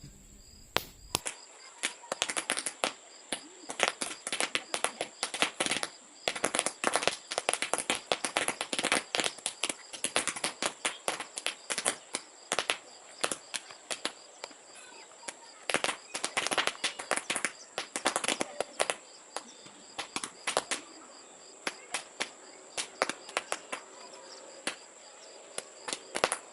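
Toy roll caps popping one after another in a long, irregular string of sharp cracks, starting about a second in. Some come singly and some bunch together into quick rattling clusters.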